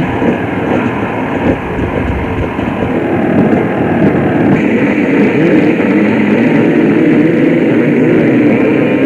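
A pack of motocross bikes revving together on the start line, then launching all at once, the engine noise growing louder about four to five seconds in.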